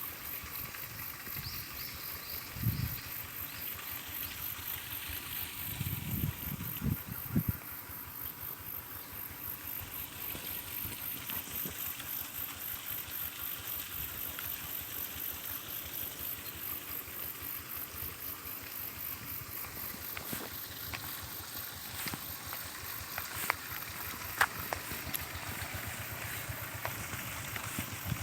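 Rural outdoor ambience: a steady, fast-pulsing high-pitched chirring of insects, with a few low thumps in the first third and some faint clicks toward the end.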